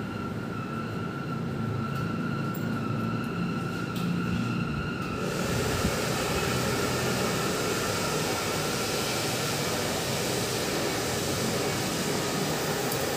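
Steady machine noise: a constant whine over a low hum, joined about five seconds in by a broad, even hiss that makes it a little louder.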